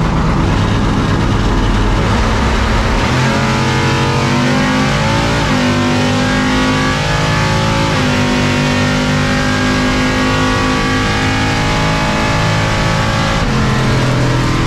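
700-horsepower Chevrolet C10 drag truck's engine running hard through a drag-strip pass, heard from inside the cab. Its pitch shifts in steps several times.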